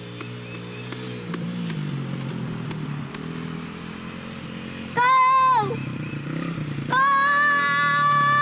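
Small Honda XR dirt bike engine running as it rides across the yard, its pitch rising and falling with the throttle. Over it, a person gives two long, loud held shouts of cheering, the first about five seconds in and ending in a falling pitch, the second starting near seven seconds.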